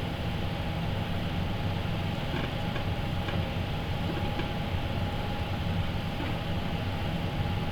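Rockford metal lathe running steadily: a low machine hum with a steady whine above it.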